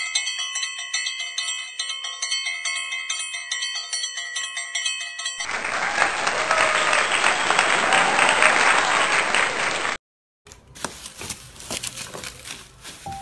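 A chiming, bell-like jingle of repeated notes, then an even burst of applause, which cuts off suddenly. After a short silence, near the end, the crackle and crinkle of plastic bubble wrap being handled and pulled open.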